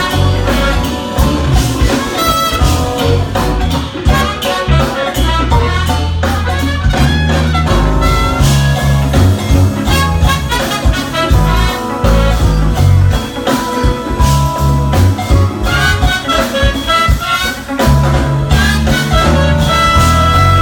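Live jazz-fusion band playing: a horn section over keyboards, electric bass and drum kit, with a strong, busy bass line and constant drum hits.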